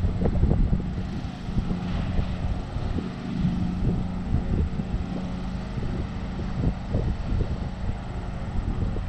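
John Deere LX176 riding lawn mower's engine running steadily, a constant drone with irregular low knocks and rattles.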